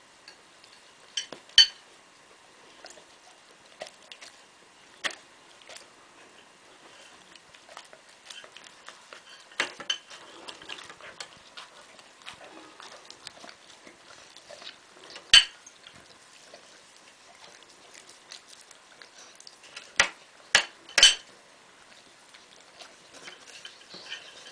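Cutlery clinking and scraping against a plate, in sharp, separate clinks with three in quick succession about twenty seconds in, while a Bernese Mountain Dog eats meat from the plate with quieter chewing and mouth noises between.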